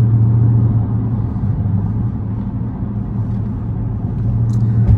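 Dodge Charger SRT8's V8 engine running steadily with a low drone.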